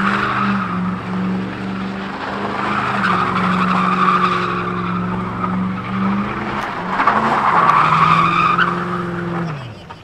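A rear-wheel-drive sedan doing donuts: the engine is held at high revs while the rear tyres spin and squeal on the asphalt. The squeal is loudest a couple of seconds before the end, then the revs fall and the sound drops away just before the end.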